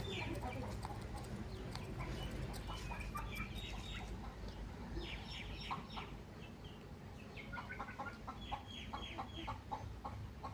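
Aseel chickens clucking, with runs of quick high chirps; from about three-quarters of the way in, a string of short clucks repeats several times a second.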